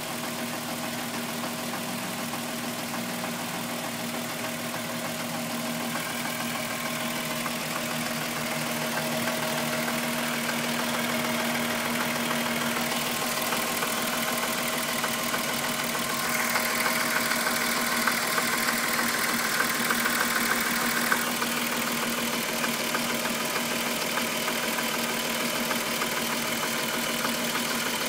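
VW Golf VR6 2.9 engine running at idle with a chain-like rubbing noise that the owner takes for the timing chain, and which grew louder after a new upper hydraulic chain tensioner was fitted. Past the middle it gets a little louder, with a brighter rasp for about five seconds that stops suddenly.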